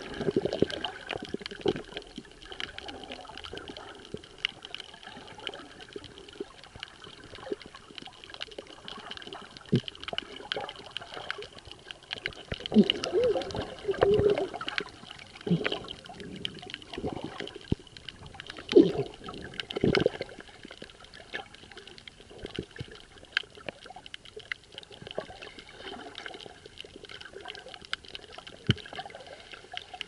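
Underwater water sound picked up by an action camera in its waterproof housing: gurgling and bubbling with many irregular clicks, and louder bursts of bubbling about thirteen and nineteen seconds in.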